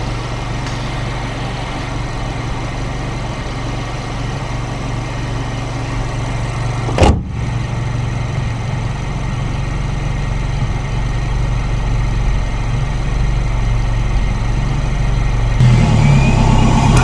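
Turbocharged 2.0-litre four-cylinder of a 2017 VW Golf GTI (Mk7) running under way, with a short sharp noise about seven seconds in. The engine then gets steadily louder as it pulls, and near the end a rising turbo whine comes in.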